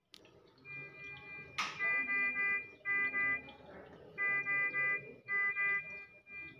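Electronic alarm of hospital monitoring equipment beeping: a multi-tone beep repeating in short runs, pausing and starting again. A single sharp knock sounds about one and a half seconds in.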